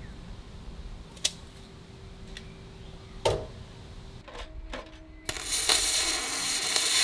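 Two sharp knocks, about one and three seconds in, then a MIG welding arc starting at about five seconds and hissing and crackling steadily for about two seconds as it tack-welds the aluminum frame.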